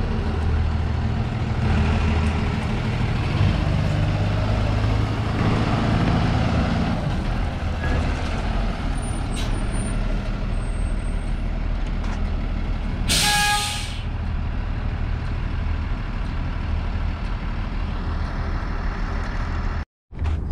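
A large vehicle engine running steadily with road noise, and a short, loud hiss about 13 seconds in.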